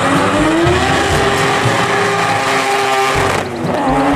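Racing car engine revving, its pitch rising, with a short break about three and a half seconds in before it climbs again.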